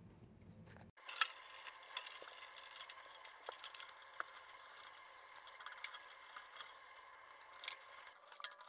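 Faint clicks and light metallic rattles from a 10-inch rack tom's tension rods and hoop being worked loose by hand to take the drum head off. They start about a second in, with one sharper click just after.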